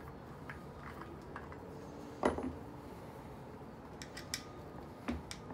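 Scattered light metallic clinks and ticks of a steel hex key and threaded insert being worked by hand into a plywood fence. The loudest clink comes about two seconds in, with another near the end.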